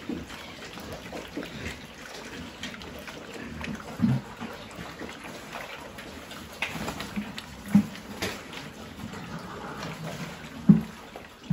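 Several pigs eating wet feed from a trough, a continuous wet slurping and chomping with small knocks, broken by three short low grunts a few seconds apart.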